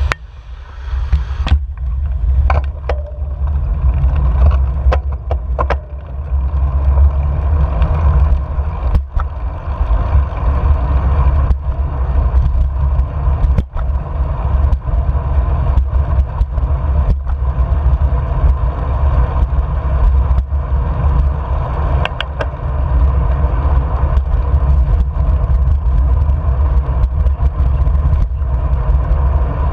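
Wind buffeting a handlebar-mounted action camera's microphone on a moving bicycle, a heavy steady low rumble, with scattered sharp knocks and rattles as the bike rolls over cracks and bumps in the pavement.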